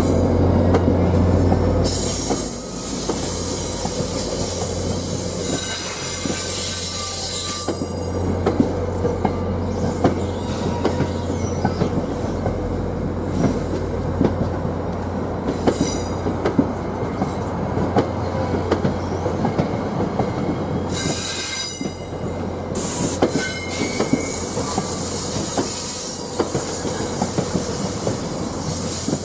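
Train rolling slowly on the rails, wheels clicking steadily over rail joints, with flange squeal coming and going several times over a steady low hum.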